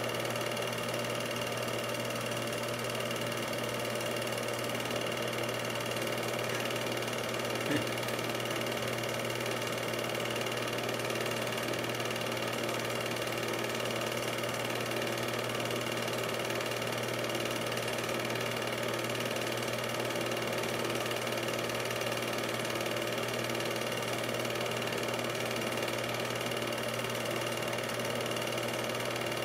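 8mm film projector running: a steady mechanical whir with a constant hum that does not change when the picture cuts. One short click about eight seconds in.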